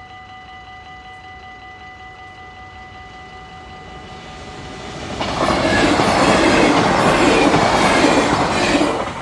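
Level crossing warning bells ringing rapidly and steadily. An NS double-deck electric passenger train approaches and passes at speed: a loud rush with the wheels clacking over the rail joints, which drops away sharply near the end as the last carriage clears.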